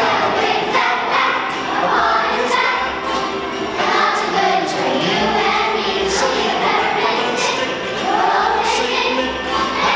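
Children's choir singing a Christmas song together over instrumental accompaniment.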